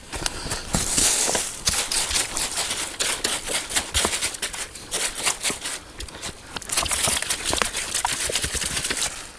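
Rustling with many small clicks and crackles, in two denser spells, one near the start and one from about seven seconds in: dry material such as gear or forest litter being handled at close range.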